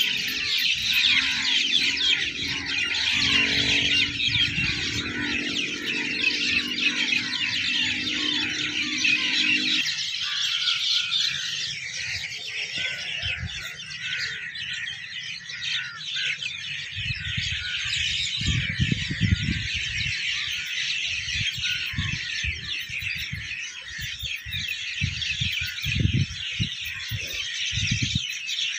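A dense chorus of many birds chirping and chattering over the fields. A low steady hum stops suddenly about ten seconds in. From just past the middle, low irregular thumps come and go.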